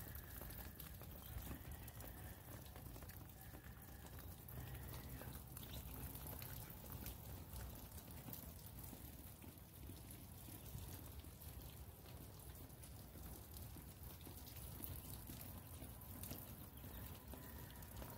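Faint outdoor background: a low rumble with light, scattered ticks and no clear single source.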